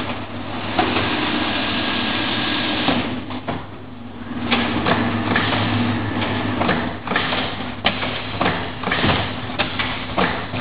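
Automatic roller-shutter assembling machine running, with a steady low hum. For the first few seconds there is dense mechanical noise, then from about halfway the sound turns into a run of irregular sharp clicks and clacks.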